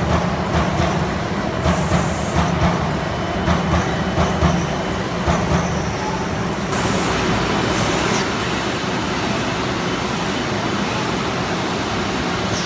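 Trumpf TruBend 7000 robotic CNC sheet-metal folding machine running: a steady mechanical rumble and hum with light regular knocks about twice a second. About seven seconds in the knocks give way to a brighter hiss.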